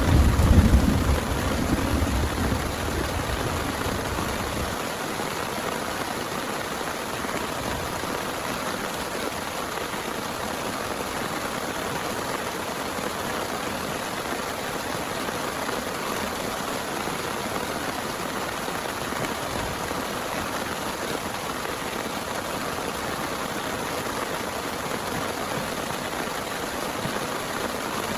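Steady heavy rain, with the low rumble of a thunderclap dying away over the first four or five seconds.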